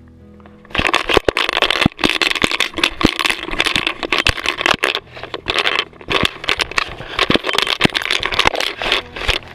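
Dog-mounted GoPro jostled as the dog runs: loud rustling and scraping against the camera, with many sharp clicks and knocks, starting suddenly about a second in.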